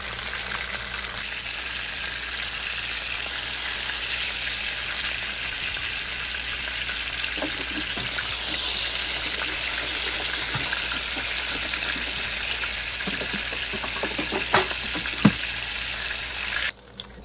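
Chicken pieces frying in grapeseed oil in a large pan, a steady sizzle. Two sharp clicks of metal tongs come near the end, and the sizzle drops away abruptly just before the end.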